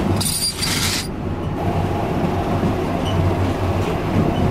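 Steady rumble and low hum inside a sleeper train carriage. A brief high hiss lasts under a second near the start.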